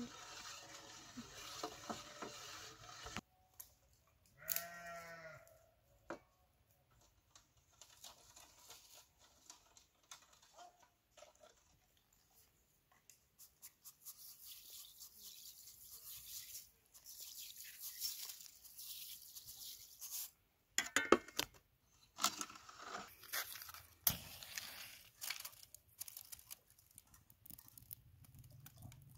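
A farm animal bleats once, briefly, about four seconds in. Around it come scattered clinks and scrapes of a metal ladle against steel bowls, and near the end the crackle and rustle of dry twigs as a fire is lit.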